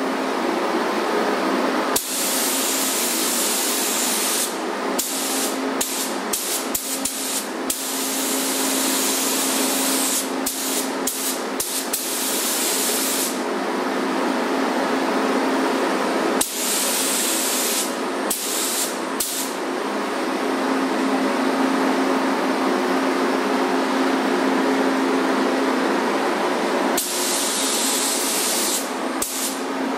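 Gravity-feed paint spray gun hissing as it sprays, switched on and off by the trigger: long passes several seconds long alternating with quick short bursts, and a few seconds of pause between passes. A steady low hum runs underneath.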